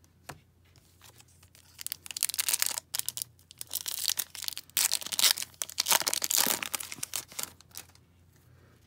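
A foil trading card pack wrapper being torn open and crinkled by hand. The crinkling and tearing starts about two seconds in, goes on for several seconds, is loudest in the middle, and stops near the end.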